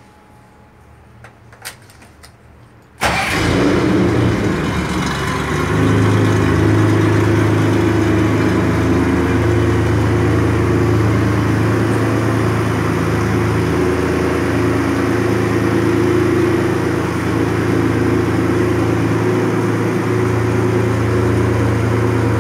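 A few faint clicks, then the 1963 Mercedes-Benz Unimog's engine starts suddenly about three seconds in and runs steadily at idle.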